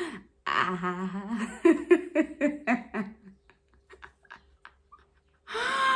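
A woman's voice making short wordless sounds, like humming or laughing, rising and falling in pitch. A few faint clicks follow, then near the end one drawn-out vocal sound that falls in pitch.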